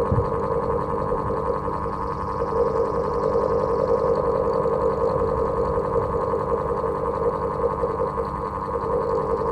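Old electric house fan running with a steady mechanical hum.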